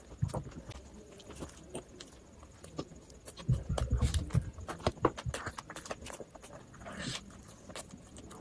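Close-miked eating sounds: irregular crunches, clicks and mouth noises of chewing, with a run of heavier low thumps about halfway through.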